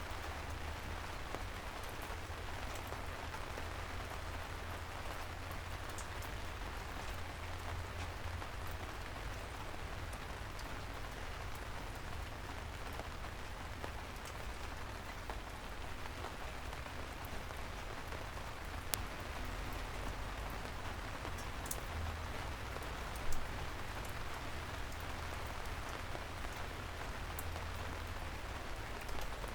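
Soft rain falling steadily, with scattered sharper drops ticking and one louder tap about two thirds of the way through. A low rumble runs underneath.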